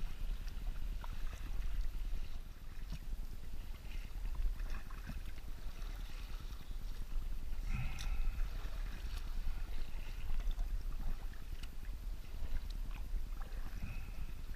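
Water lapping and splashing against a kayak's hull as it is paddled over choppy water, with irregular small splashes, the clearest about eight seconds in. Wind rumbles steadily on the microphone.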